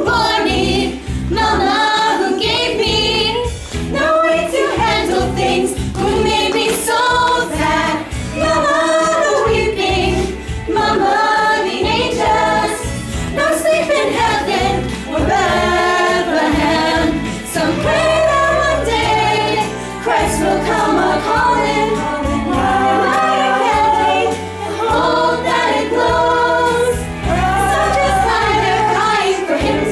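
A group of women singing together in harmony, a show-choir number over instrumental accompaniment with a steady low bass.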